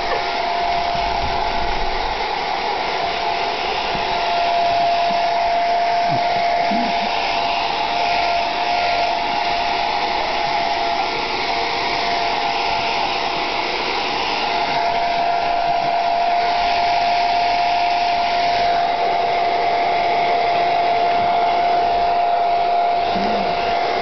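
Handheld hairdryer running steadily on its coolest setting: a rush of blowing air with one steady whining tone from its motor.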